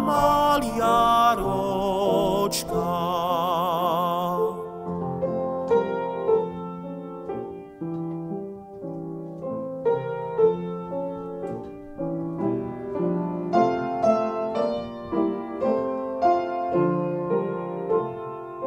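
Slovak folk song in a classical piano arrangement: a male voice holds a long note with vibrato that ends about four seconds in, then the piano plays on alone.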